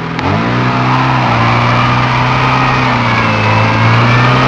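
Lada Niva engine revving up sharply and held at steady high revs under load as the 4x4 pushes through a deep rut.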